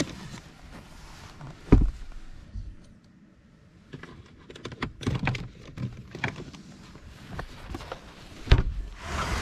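Scattered clicks, taps and knocks of small objects being handled, with two heavier thumps, one about two seconds in and one near the end. A steady hiss sets in at the very end.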